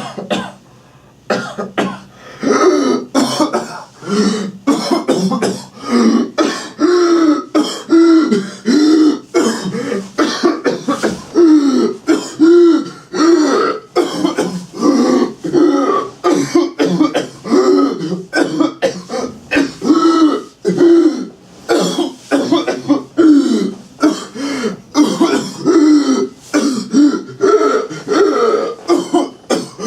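A person coughing over and over in long strings of short, closely spaced coughs, two or three a second, each with a note in it: the fit-like coughing of whooping cough (pertussis).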